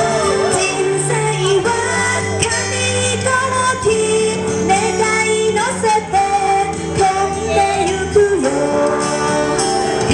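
A female voice singing a Thai pop song into a microphone over a recorded instrumental backing track.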